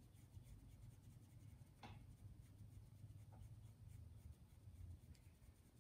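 Faint strokes of a paintbrush on canvas over a low steady room hum, with one light tick about two seconds in.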